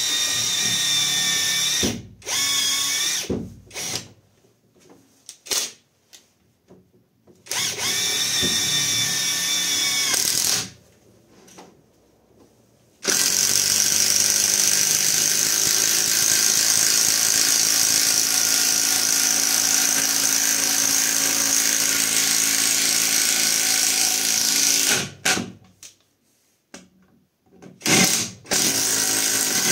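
Catpower 4226 cordless impact wrench driving a 10 mm by 150 mm lag screw into a wooden log. It runs in several bursts, short ones in the first ten seconds, one long run of about twelve seconds from about thirteen seconds in, and another burst near the end.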